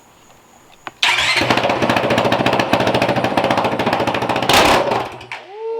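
Honda CRF450L single-cylinder four-stroke engine running with its muffler removed, open exhaust: it fires up abruptly about a second in, runs loud with rapid firing pulses, blips once louder near the end, then shuts off.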